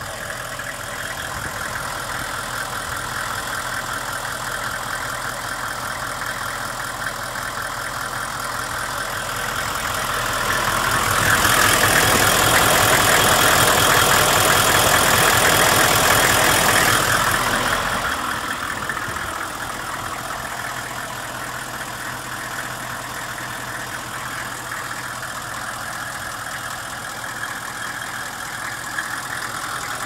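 Chevrolet Express 3500 bus engine idling steadily. It grows louder and hissier for several seconds about halfway through, heard from underneath the chassis, then settles back to a steady idle.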